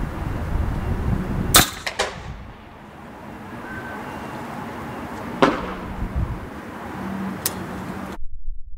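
Suppressed shots from an Edgun Leshiy 2 semi-automatic .25 PCP air rifle: a sharp report about one and a half seconds in followed by a quick smack, and another report about five and a half seconds in. The sound cuts off abruptly near the end.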